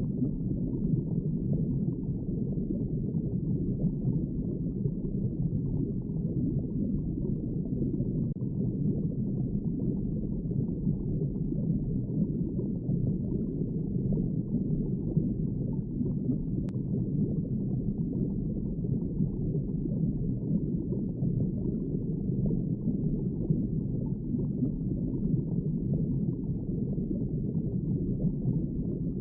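Underwater ambience: a steady, muffled low rush of water with no distinct events.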